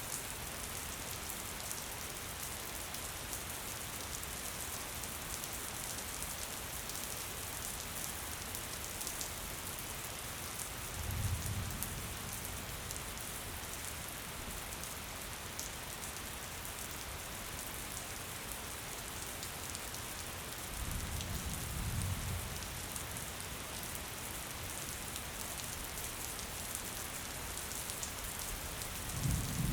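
Steady light rain: an even hiss with scattered drop ticks. A low rumble swells briefly three times, about a third of the way in, about two-thirds in, and at the end.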